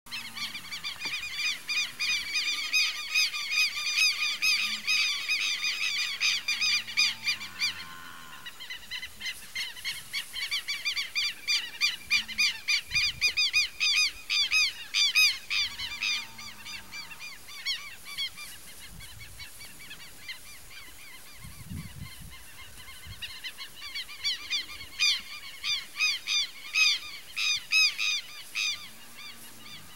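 Birds calling in fast runs of repeated notes, in long bouts with a quieter stretch through the middle.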